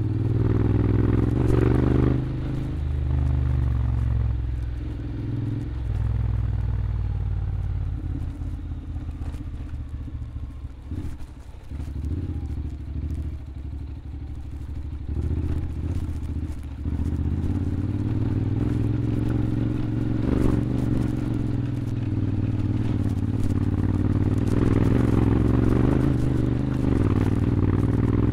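Honda X-ADV 750's parallel-twin engine running under way through an Akrapovič exhaust, its note shifting with the throttle. It drops back for several seconds midway, then pulls again steadily.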